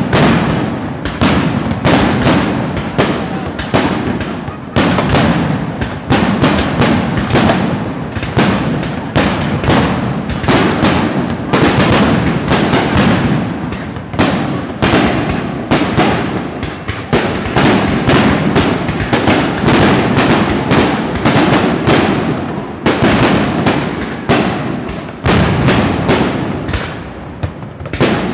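Aerial fireworks shells bursting in a rapid, continuous barrage of sharp bangs, several a second.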